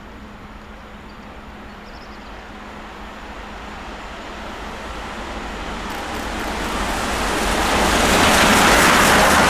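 SNCF 241 P 4-8-2 steam locomotive and its train of coaches approaching and passing close by, the noise building steadily to its loudest near the end, with a fast rhythmic clatter coming in as it draws level.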